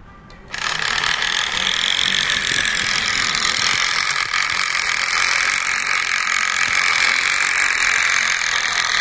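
Edo-period tea-serving karakuri doll's wooden gear train running as the doll walks, a steady dense whirring and clicking. It starts suddenly about half a second in, as the cup set on its tray releases the mechanism.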